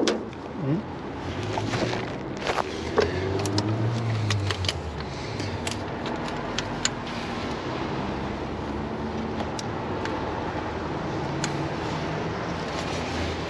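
A car running, with a low hum that swells and fades a few seconds in, and scattered light clicks and knocks.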